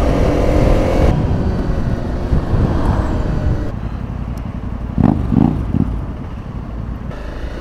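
Honda CRF motorcycle engine running, with a brief louder swing in pitch about five seconds in.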